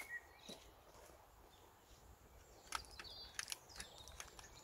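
Faint birdsong: small birds chirping and warbling outdoors. A few light clicks come about three seconds in, from a plastic seedling tray being handled.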